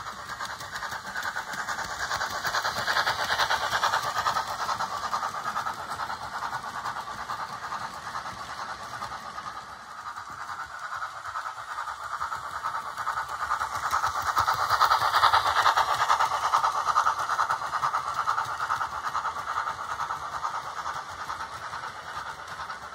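Hornby OO-gauge model steam locomotive and its coaches running around the layout: a fast, even clatter of wheels and mechanism that swells twice as the train passes near, about three seconds in and again around fifteen seconds in.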